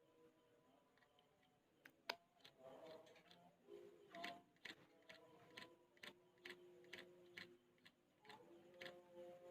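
Yellow-vented bulbul nestlings begging for food: faint, short, sharp chirps repeated about twice a second, starting about two seconds in.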